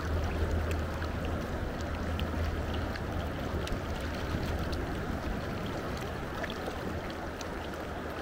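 Steady rush of a river's flowing current, with a low rumble underneath that fades about halfway through.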